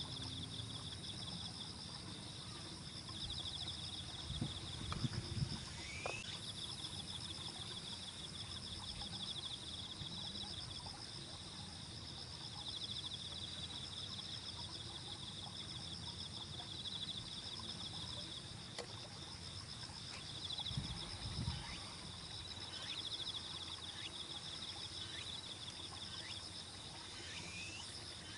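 Steady chorus of insects trilling in two high, pulsing bands, with several short falling chirps in the second half. A couple of low thumps, about five seconds in and again past twenty seconds, are the loudest moments.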